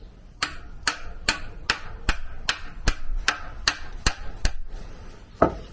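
A hammer tapping a universal-joint cross bearing into the yoke of a Mercruiser Alpha One outdrive's drive shaft: eleven light, evenly spaced taps, about two and a half a second, then one heavier, lower knock near the end as the bearing is seated.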